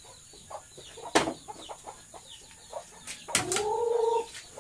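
Chickens clucking and peeping, with a sharp knock about a second in and a single held call of about a second near the end.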